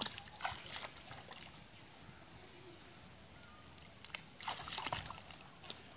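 Shallow muddy water sloshing and splashing around a person's legs as he wades. The splashes come in two spells, one at the start and one about four and a half seconds in.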